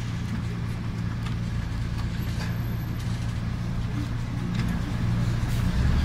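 City bus heard from inside the cabin while driving: a steady engine and road drone with faint rattles, getting somewhat louder toward the end.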